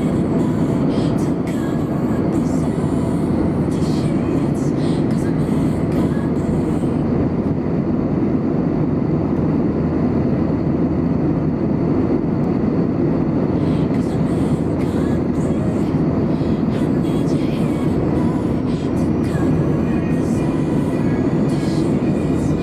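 Steady cabin noise of an Airbus A320 in flight: an even, unbroken rumble of engines and airflow, with a few faint clicks over it.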